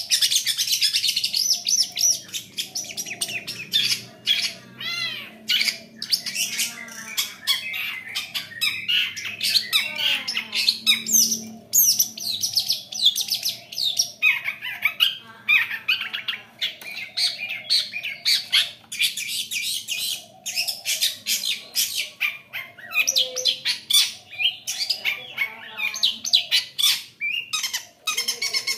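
Long-tailed shrike (cendet) singing a fast, varied, chattering song of rapid notes and quick sweeping whistles, with only brief gaps.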